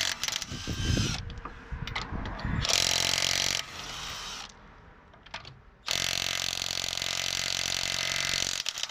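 Cheap cordless impact wrench run against a wheel nut tightened to 120 Nm, in three bursts: one at the start, a short one about three seconds in, and a longer steady run of about three seconds from about six seconds in.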